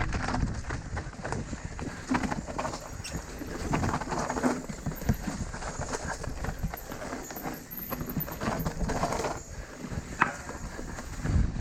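Mountain bike riding down a rough dirt trail: a steady run of irregular clattering and knocks from the bike and tyres over the ground, under a low rumble, with one sharp knock about ten seconds in.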